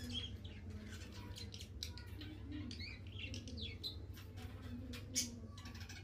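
Cockatiel biting and crunching corn kernels off the cob, a run of irregular small clicks and crunches as its beak works the kernels and taps the steel plate, with one sharper click about five seconds in. A few short, soft chirps come in between, over a steady low hum.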